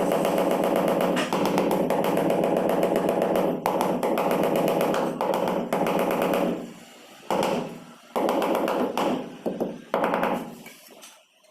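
A tiling power tool rattling with a rapid, even pulse. It runs steadily for several seconds, then in short bursts that stop and start, before dying away near the end.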